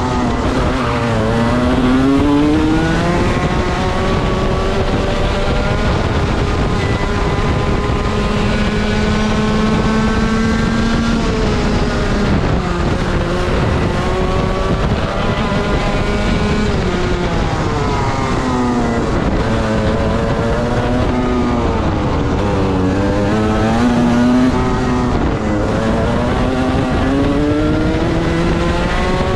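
Racing kart's two-stroke engine heard from the driver's seat while lapping a track at full speed. Its pitch climbs steadily along the straights and drops sharply as the kart slows for the corners, several times over.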